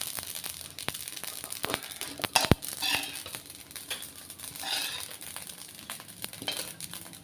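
Roasted poppy seeds being scraped out of a kadhai, with scattered clicks and short scrapes and one sharper knock about two and a half seconds in.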